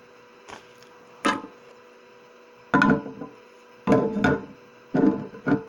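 A blue plastic lid being pressed and snapped onto a small plastic sea-monkey tank, giving several sharp clicks and knocks.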